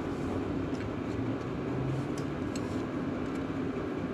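Steady low background rumble with a few faint, light clicks scattered through it, as of a small nut and bolt being handled by hand.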